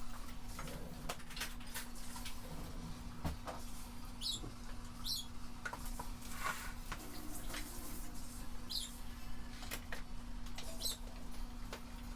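Hands handling a plant light and pot: scattered small clicks and light rustling, with a few brief high squeaks and a steady low hum throughout.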